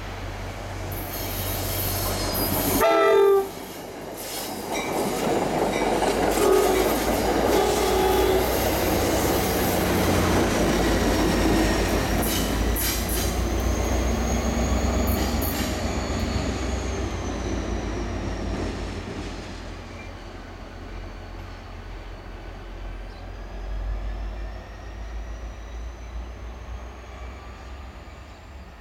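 EMD GP40FH-2 diesel locomotive running light past: a short horn blast about three seconds in, then the diesel's rumble and the clatter of its wheels as it passes close, with a thin high wheel squeal on the curve. The rumble fades away in the last third.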